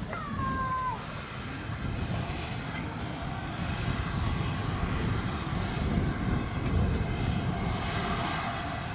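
Andrew Barclay 0-4-0 saddle tank steam locomotive moving slowly, with a steady rumble and hiss of steam and steam blowing from its cylinder drain cocks. A brief whistle, falling in pitch and lasting about a second, sounds at the start.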